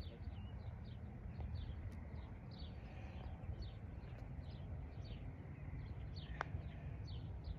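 A bird calling over and over in short falling chirps, over a low wind rumble on the microphone. A little over six seconds in, a single sharp click as a putter strikes a golf ball.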